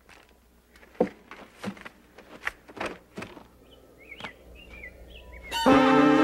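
Scattered sharp knocks and taps, with a few faint bird-like chirps near the middle. About five and a half seconds in, a loud, held cry of alarm starts and is the loudest sound.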